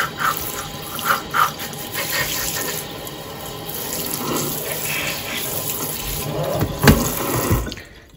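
Kitchen sink sprayer spraying water onto plant leaves in a stainless steel sink, a steady hiss. There is a knock about seven seconds in, and the water shuts off just before the end.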